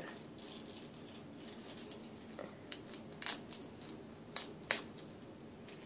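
A hardened toilet-paper-and-glue pore strip being slowly peeled off the skin of the face, quiet, with a few short sharp crackles from about two seconds in.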